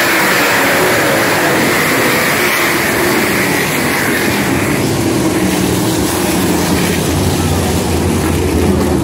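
A pack of World of Outlaws winged sprint cars, with 410 cubic-inch methanol-burning V8s, racing at speed around a dirt oval: many engines sounding at once, loud and steady. The higher-pitched engine note fades about four and a half seconds in, leaving a lower drone.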